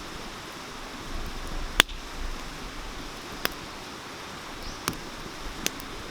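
Wood fire crackling, with a few sharp pops, the loudest about two seconds in, over the steady rush of a mountain stream.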